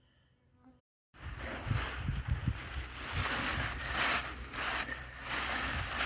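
After about a second of near silence, a black plastic bag rustles and crinkles as hands open it and handle the mushrooms inside.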